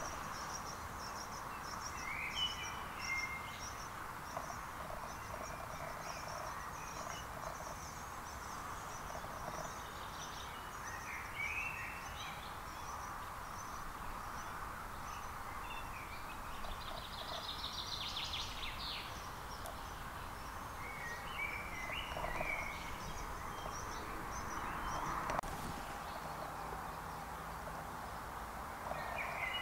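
Woodland ambience: several songbirds singing in short phrases and high repeated chirps, including a fast buzzy trill about two-thirds of the way through, over a steady background hiss.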